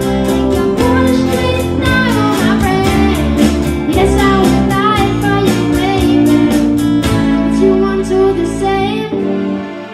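School band playing a pop song live, with children singing over strummed guitar, bass and drums. The full band drops out about nine seconds in, leaving a quieter held sound.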